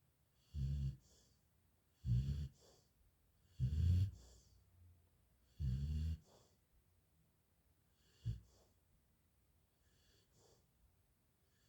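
A person snoring: four loud low snores about every one and a half to two seconds, then a short one about eight seconds in, and only faint breaths after.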